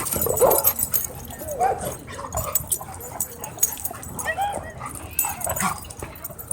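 Dogs barking, yipping and whining in short, scattered calls, several of them rising and falling in pitch.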